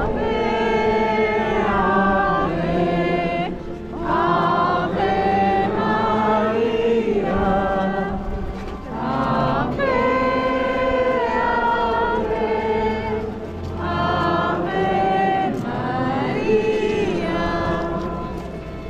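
A choir singing slow, long-held phrases, with short breaks between them about every five seconds.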